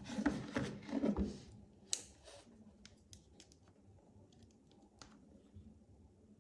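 Close handling noises of a phone and charging cable: a rustle for the first second and a half, a sharp click about two seconds in, then scattered faint clicks.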